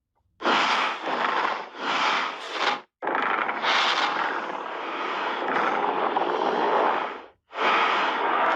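Godzilla's roar sound effect, 2021 film version: two short roars, then a long roar lasting about four seconds, and another beginning near the end.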